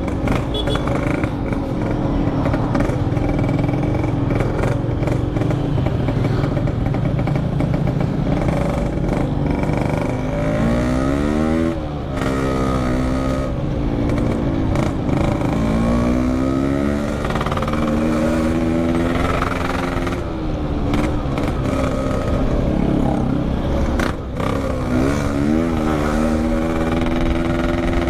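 Yamaha RX-King two-stroke single-cylinder motorcycle engine with a packing power exhaust, under way and revving, its pitch climbing and dropping back again and again as it pulls through the gears, most often in the second half.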